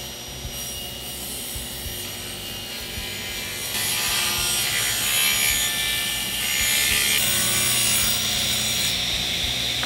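Table saw running, then ripping a plywood board to trim its edge, the cut louder and rougher from about four seconds in until near the end.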